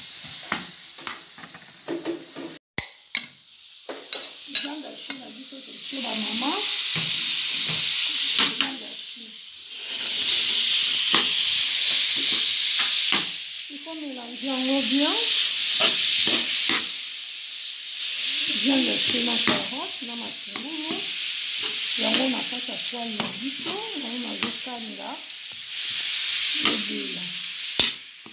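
Grated carrot, onion and ground beef sizzling in oil in a nonstick frying pan while a metal spoon stirs and scrapes against the pan. The sizzle swells and fades in long surges, with scattered scraping clicks.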